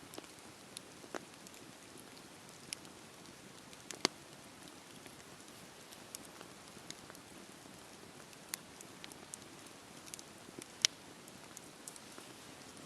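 Wood bonfire crackling: a steady low hiss of burning with irregular sharp pops and snaps, two louder pops about four seconds in and near the end.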